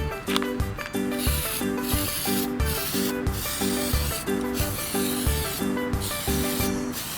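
Background music with a steady beat, over repeated rasping strokes of hand sanding that start about a second in.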